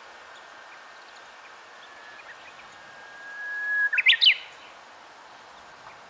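Japanese bush warbler (uguisu) singing its 'hoo-hokekyo' song: one long, even whistle that swells in loudness, then a quick flourish of sharp rising and falling notes about four seconds in.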